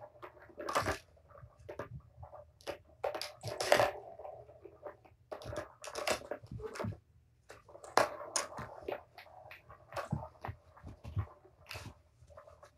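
Kittens at play: an irregular run of clicks, knocks and scrapes from paws batting a plastic ball-track toy and scrambling over the floor.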